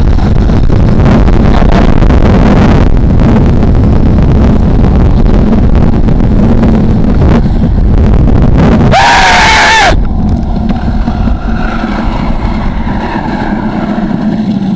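Wind buffeting the microphone and skateboard wheels roaring on asphalt during a fast downhill run. About nine seconds in there is a brief, high-pitched squeal lasting about a second, after which the noise drops and turns choppier.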